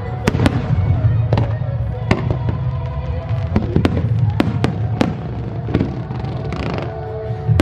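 Aerial fireworks shells bursting in the sky: an irregular run of about a dozen sharp bangs, with a brief hiss near the end, over music playing.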